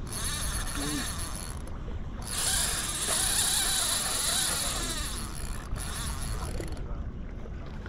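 Fishing reel running with a mechanical whir, loudest through the middle few seconds. Clothing rubs close to the microphone.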